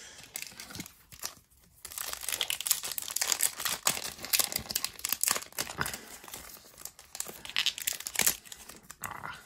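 A Pokémon booster pack's foil wrapper being torn open by hand and handled, crinkling and crackling densely from about two seconds in until near the end.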